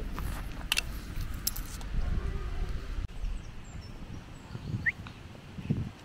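Wind rumbling on the microphone, with a few light clicks in the first couple of seconds and a short rising bird chirp near the end.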